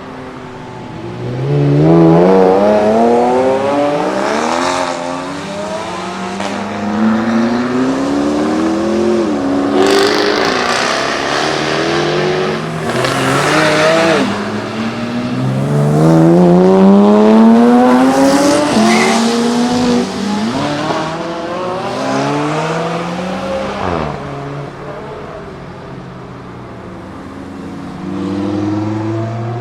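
High-performance supercar engines accelerating hard, revving up through the gears several times with a sudden drop in pitch at each upshift, as cars pull away and pass by.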